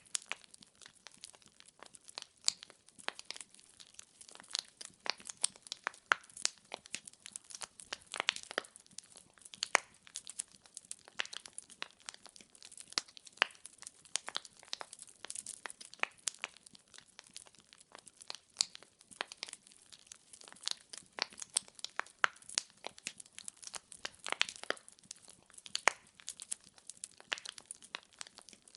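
Burning firewood crackling: a dense, irregular run of sharp pops and snaps over a soft hiss.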